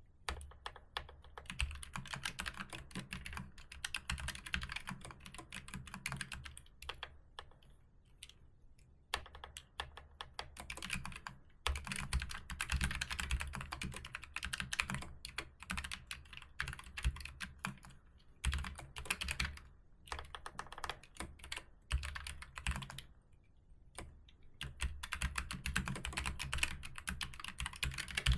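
Typing on a computer keyboard: fast, dense runs of keystrokes broken by short pauses every few seconds.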